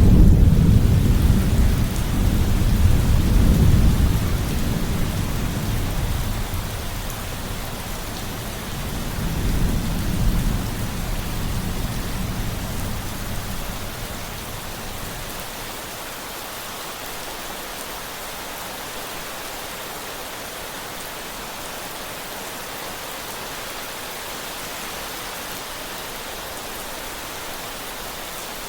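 Steady rain with a long rolling thunder rumble that starts suddenly, swells again about ten seconds in, and dies away after about fourteen seconds, leaving only the even hiss of rain.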